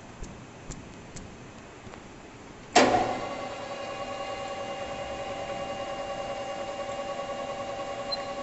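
Metal-working lathe starting up: a few light clicks, then a loud clunk about three seconds in as the spindle is engaged, after which the chuck and gearing run with a steady hum made of several constant tones.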